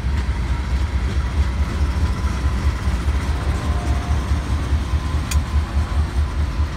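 Freight train passing close, with a BNSF GE Dash-9 diesel locomotive working as a mid-train DPU rolling by among the cars: a steady, loud low rumble of the locomotive and wheels on the rails, with one short click about five seconds in.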